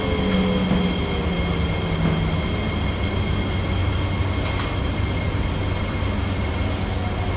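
Kawasaki–CRRC Qingdao Sifang C151B metro train heard from inside the car as it slows into a station. The motor whine glides down in pitch and dies away in the first two seconds or so, leaving a steady rumble of the wheels on the rails.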